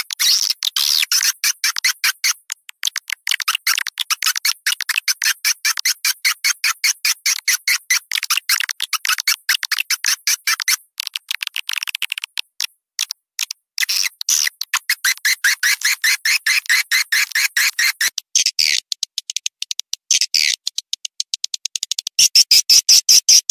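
Edible-nest swiftlet call recording, a looped lure sound of breeding-season twittering used to draw swiftlets into a nest house. It is a fast, even run of short chirps, about five or six a second. Near the end it turns into sparser, louder bursts.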